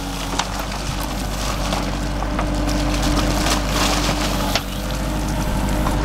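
Kubota tractor's diesel engine running steadily under load, driving a backhoe as its bucket digs into wet dirt and burnt wooden debris, with frequent sharp cracks, knocks and scraping from the bucket.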